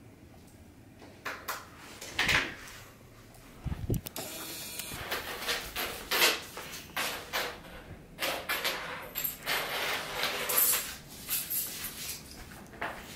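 Irregular rustles, scuffs and knocks of movement in a room, such as handling and footsteps, including one heavier thump about four seconds in. It is quiet for about the first second before they begin.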